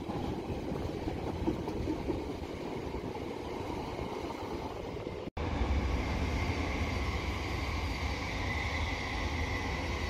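A steady rushing noise, then, after a cut about halfway through, an electric multiple-unit train at the platform, with a strong deep rumble and a steady high whine.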